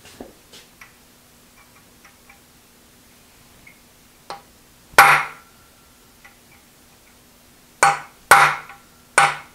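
Hammer blows on a pin punch, driving a stuck pin in the tilting-adjustment gear of a 1950 Wells Index Model 40 milling machine: a light tap, a sharp metallic blow about five seconds in, then three more blows in quick succession near the end, each with a short ring. The pin is probably tapered, and he is unsure whether he is driving it the wrong way.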